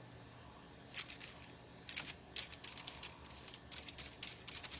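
Faint paintbrush strokes, short and scratchy, starting about a second in and coming more busily toward the end.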